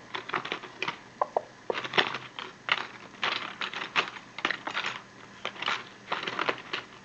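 Small metal parts of an old ASSA lock clicking and scraping as it is worked apart with tools, in quick irregular clicks with short pauses.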